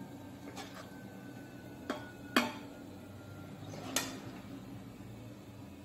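A metal spoon clinking and scraping against a steel bowl and an aluminium pot while masala is spooned onto rice. There are four sharp knocks, the loudest about two and a half seconds in, followed by a brief metallic ring.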